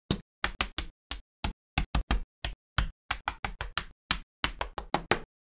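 Plastic model kit parts set down one after another on a tabletop mat: a quick, uneven run of sharp little taps, about four or five a second, that stops abruptly near the end.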